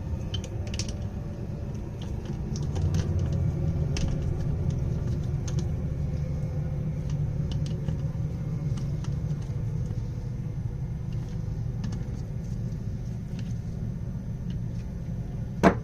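Light, scattered metallic clicks and taps of hand tools working on a four-carburetor rack, over a steady low rumble, with one sharper click near the end.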